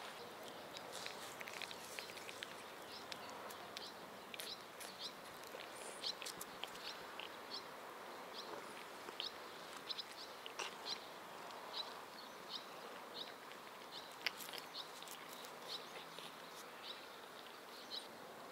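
Quiet outdoor garden ambience: scattered short, high chirps, a few every second, over a faint steady hiss.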